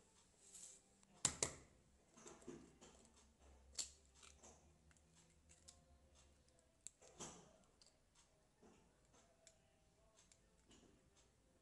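An egg tapped sharply twice against the rim of a glass mixing bowl to crack it, about a second in. Quieter clicks and taps of the eggshell follow while the yolk is separated from the white.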